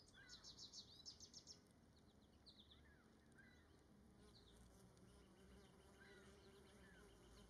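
Very faint outdoor sound: a bee buzzing as a low, steady drone in the second half, with faint high bird chirps, including a quick run of them in the first second and a half.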